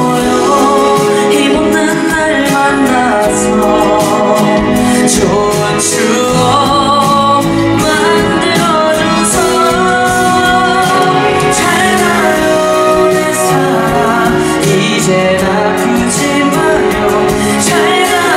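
A young male singer's voice singing a Korean song live into a microphone over instrumental backing music, with vibrato on held notes.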